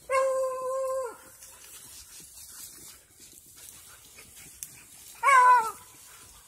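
A hound baying on a trail: one long, level bawl of about a second at the start, then a shorter call about five seconds in that drops in pitch.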